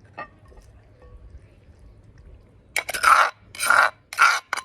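Rhythmic rasping strokes, about two a second, starting near three seconds in, like something being scraped or filed by hand.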